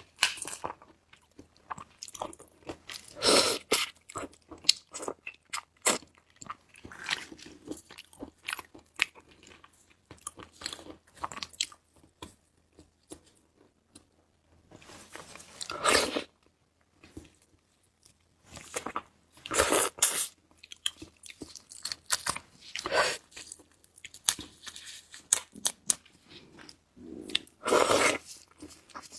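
Close-miked chewing and crunching of red prawn: irregular crisp crunches and wet mouth sounds, with a louder crunch every few seconds.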